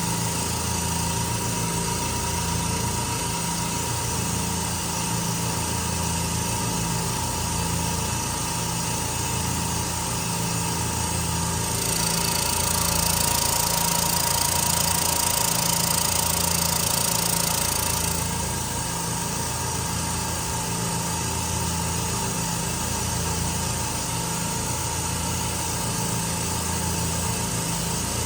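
Peak Scientific AB-3G nitrogen generator's air compressors running, a steady mechanical hum with a low, evenly pulsing throb. About twelve seconds in, a loud hiss starts, lasts about six seconds, then stops.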